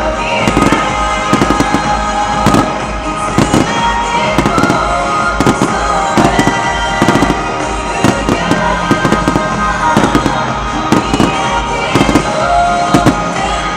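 Fireworks bursting in a rapid, irregular barrage of sharp bangs, several a second, over music played through loudspeakers.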